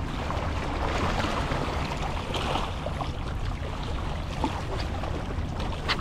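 A boat on open sea: a steady low hum with wind on the microphone and water washing past the hull.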